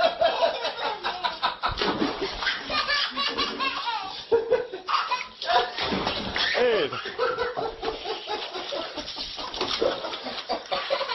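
People laughing hard and continuously, with bits of excited talk, at a cat falling into a tub of water.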